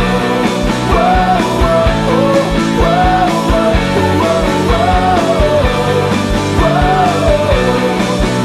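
Background music: a song with a melodic phrase repeating about every two seconds over a steady beat.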